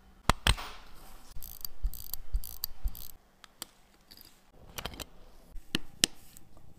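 Irregular small, sharp metal clicks and taps from a watchmaker's screwdriver and handling on a hand-wound IWC Portugieser 8 Day watch movement, busiest in the first few seconds.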